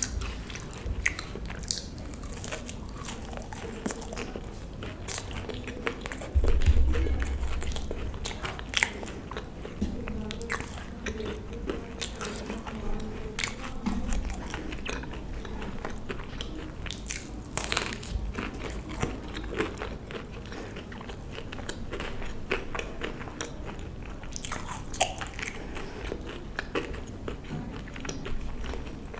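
Close-miked eating: a person biting and chewing food, with crunches and wet mouth clicks throughout, and a louder low thump about six and a half seconds in.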